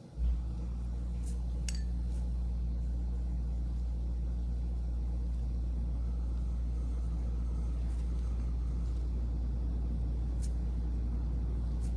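A steady low machine hum switches on abruptly just after the start and runs on unchanged, with a few faint clicks over it.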